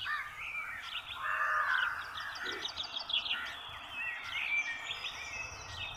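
Several birds calling and chirping outdoors: a busy mix of short chirps and quick trills.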